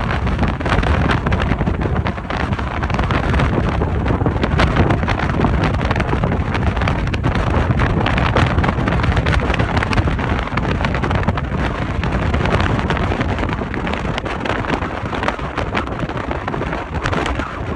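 Wind blowing hard across the microphone, a loud steady rush with rapid flutter, mixed with the running noise of a passenger ferry under way.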